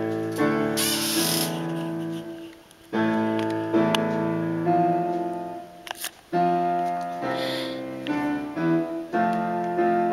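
Classical piano music played from a CD through hi-fi loudspeakers: chords and melody in phrases broken by brief pauses.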